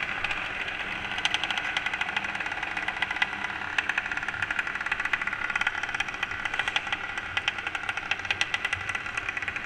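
Small mini moto engines running at low speed in close company, a fast, uneven stream of firing pulses over a steady mechanical hum.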